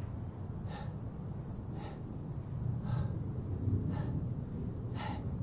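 A man panting hard, with a sharp exhale about once a second in time with bodyweight squat reps, five in all. It is the breathing of someone near exhaustion late in a long set.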